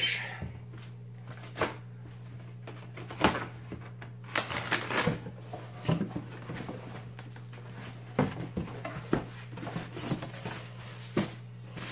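A cardboard shipping box being opened by hand: a blade slitting the packing tape, the cardboard flaps pulled open and a styrofoam lid worked loose, heard as scattered rustles, scrapes and knocks over a steady low hum.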